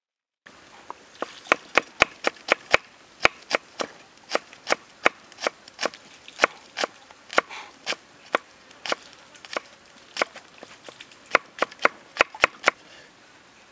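Kitchen knife chopping on a wooden cutting board: a run of sharp, uneven knocks, about two to three a second, starting about half a second in.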